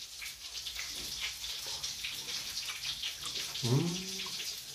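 Mushrooms in egg batter frying in oil in a pan: a steady sizzle with small crackles. A short hummed 'mm' from a man's voice comes about three and a half seconds in.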